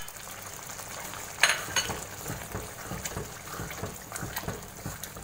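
Spinach-and-chicken curry bubbling and spitting in a large pot as ground spices are tipped in, with many small pops. There is a single sharp knock against the pot about a second and a half in.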